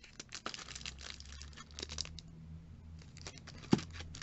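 Clear plastic bag around a mascara crinkling and crackling as it is handled, in quick irregular crackles with a pause in the middle and one sharp click near the end. A faint low hum runs underneath.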